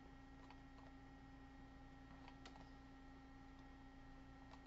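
Near silence: a steady faint electrical hum with a few soft computer mouse clicks scattered through it.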